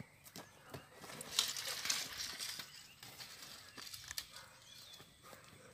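Footsteps and rustling on dry grass and bare ground, with scattered sharp clicks and a louder patch of rustling about a second and a half in.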